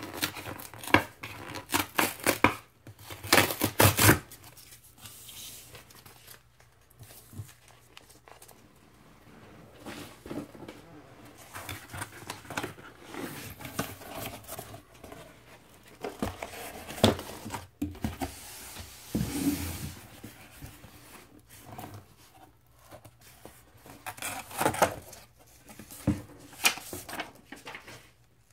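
Cardboard vinyl mailer box being ripped open along its perforated tear strip, in bursts of tearing that are loudest in the first four seconds, then cardboard flaps rustling and scraping as the box is opened.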